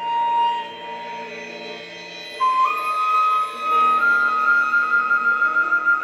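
Thai khlui bamboo flute playing a slow melody over a soft sustained backing: a long held note, then a step up to a higher note that is held with a fast wavering trill for the last couple of seconds.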